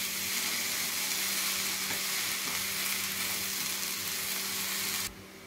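Grated drumstick and coconut thoran sizzling in a frying pan while a spatula stirs and scrapes it: a steady hiss that cuts off suddenly near the end.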